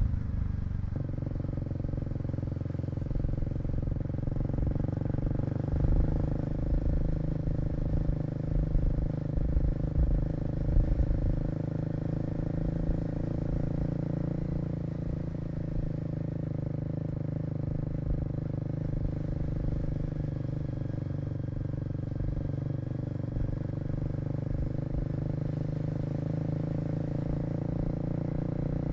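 Kawasaki KLX250's single-cylinder four-stroke engine running at a fairly steady pitch while the bike is ridden through traffic.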